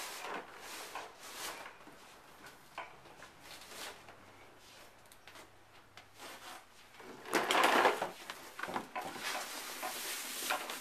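Plastic toy push lawn mower rolling on carpet with scattered clicks and rattles. A louder rustling scrape lasts about a second, starting a little over seven seconds in.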